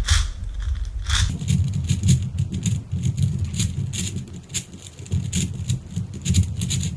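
Rubik's Professor 5x5 cube being scrambled by hand: irregular plastic clacks and scraping as the stiff layers are forced round.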